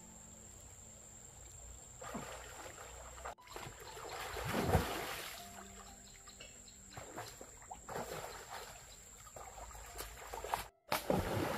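Stream water sloshing and splashing as a swimmer ducks under and pushes through the water, swelling to a loud gush about five seconds in, with smaller splashes later. The sound breaks off abruptly twice.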